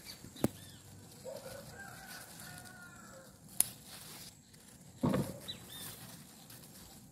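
A chicken calling faintly in the distance for about two seconds, with a couple of sharp clicks. Near the end comes a louder short rustle and knock, handling noise from picking among the maxixe vines.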